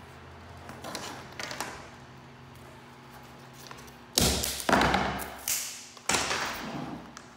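Wooden carpet tack strip being set down and knocked against a hardwood floor: a few light taps, then four loud knocks with a short clatter after each, from about four seconds in.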